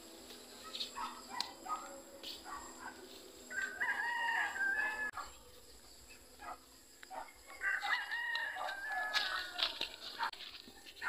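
Rooster crowing twice, each crow lasting a little under two seconds, with scattered short clicks between the crows.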